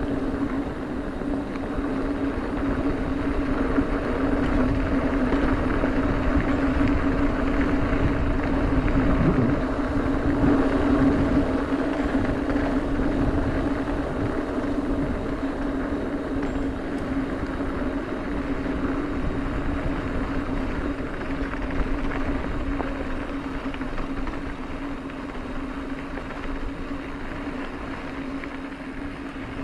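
Mountain bike rolling fast down a dirt track: tyre noise on the hardpack with a steady hum and rushing wind on the microphone, a little louder for a few seconds about a third of the way in.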